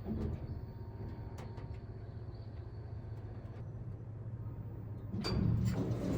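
Steady low rumble of wind and road noise while riding a bicycle, with a few faint clicks; it gets a little louder about five seconds in.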